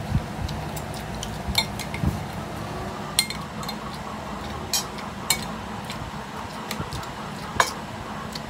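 Spoons and forks clinking and scraping against plates and a glass serving bowl while two people eat. The clinks are sharp and irregular, about a dozen of them, with the loudest about three-quarters of the way through.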